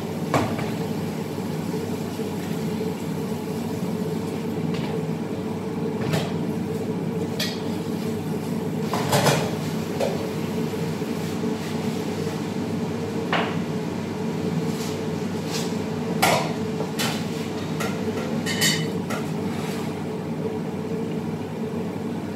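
Metal pots and utensils clinking and clanking now and then, about half a dozen separate knocks, over a steady low hum from the kitchen.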